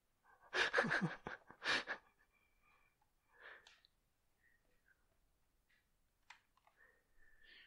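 A person's breathy vocal sound in the first two seconds, followed by faint scattered clicks and small mouth noises.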